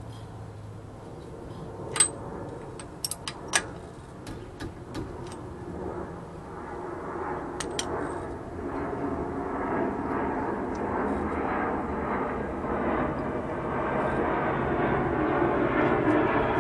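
A few sharp metallic clinks in the first few seconds as the new hub and brake rotor are handled. Then a steady engine rumble from a passing vehicle or aircraft grows slowly louder.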